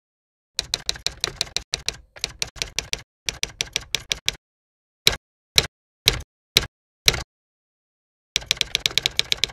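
Manual typewriter keys clacking in three quick runs of keystrokes, then five single, heavier strikes about half a second apart, then another quick run near the end.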